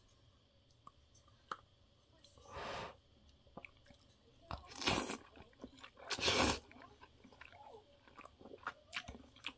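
A person eating spicy chicken feet with noodles close to the microphone: soft chewing with small wet clicks, and three louder short noisy sounds about two and a half, five and six seconds in.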